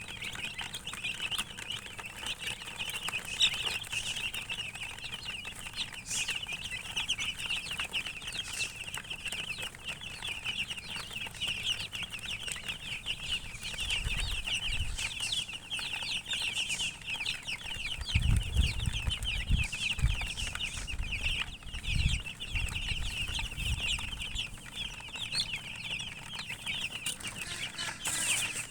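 Many chicks peeping at once, a dense continuous chorus of short high chirps. A few low thuds come in around the middle.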